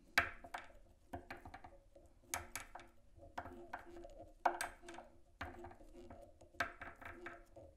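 Irregular light clicks and taps, about one or two a second, from hands and tools handling a fly on a fly-tying vise while the peacock herl is wrapped.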